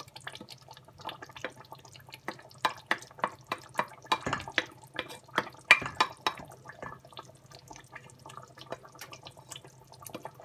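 Thick tomato sauce bubbling and popping in a steel pot, mixed with a wooden spoon scraping and knocking pepper purée off a ceramic plate. Irregular sharp pops and taps come several a second over a low steady hum.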